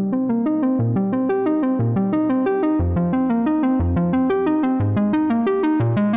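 Background music: a synthesizer keyboard tune of quick, evenly spaced notes over a bass line that changes about once a second.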